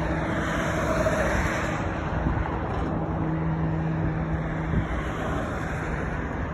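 Outdoor traffic noise and wind rushing on the microphone, with a steady low vehicle engine hum that drops away about five seconds in.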